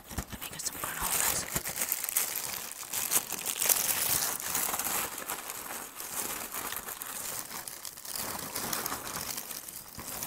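Close-miked chewing of Honey Bunches of Oats cereal in milk: a continuous crackly crunching with many small clicks, easing off somewhat in the second half.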